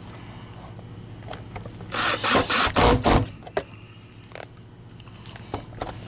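Cordless drill/driver running screws down into the vacuum's plastic housing: a quick run of short bursts about two seconds in, and one more a little later.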